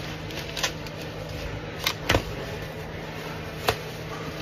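Bubble wrap rustling and crinkling as it is handled and pulled open, with a few short sharp crackles, the loudest just past two seconds in, over a steady low hum.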